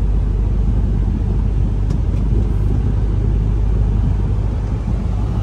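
Steady low rumble of a tractor-unit truck's engine and tyre noise, heard inside the cab while cruising at highway speed.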